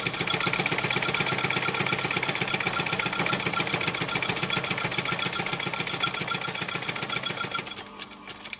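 Industrial sewing machine running steadily, stitching leather, with a fast even run of needle strokes that drops in level shortly before the end.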